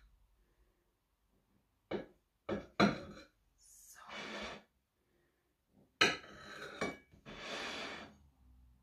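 Large kitchen knife cutting through a chocolate sponge cake on a ceramic plate: several sharp clinks of the blade against the plate, the strongest about six seconds in, and two stretches of scraping as the blade saws through the cake.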